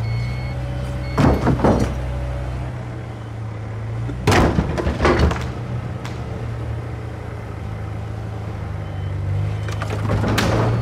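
Volvo wheel loader's diesel engine running steadily, with two short bursts of loud clanks and knocks, about a second in and again about four to five seconds in; the engine gets a little louder near the end.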